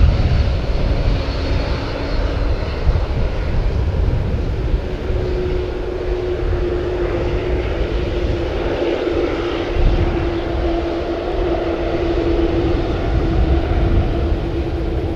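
Boeing 787-8 Dreamliner's GEnx turbofans running at low taxi power as the airliner rolls past: a steady low rumble with a steady hum that comes in about a third of the way through and grows stronger.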